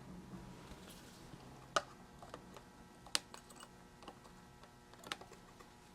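Faint, scattered small clicks and taps of hands working through-hole resistors into a kit circuit board, with three sharper clicks about two, three and five seconds in.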